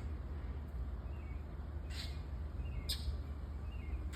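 A bird giving a few short, sharp calls about a second apart, scolding a cat, with fainter bird notes between them over a steady low rumble.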